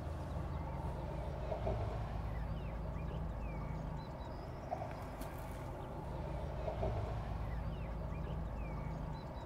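Outdoor ambience: a steady low rumble with a few faint high chirps now and then.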